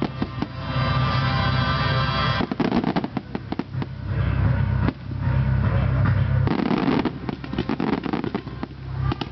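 Fireworks display: a dense, rapid barrage of bangs and crackles from aerial shells and rising comets going off one after another.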